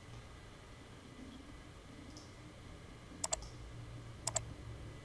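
Computer mouse clicking twice, about a second apart, each time a quick pair of sharp clicks, over a faint low hum.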